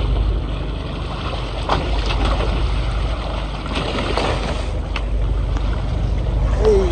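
Fishing boat's engine running with water splashing against the hull as a hooked tuna thrashes at the surface and is gaffed, with sharp splashes about two and four seconds in. A short shout near the end.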